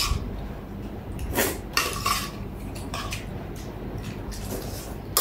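Metal spoons clinking and scraping against ceramic plates as people eat, a handful of short separate clinks and scrapes.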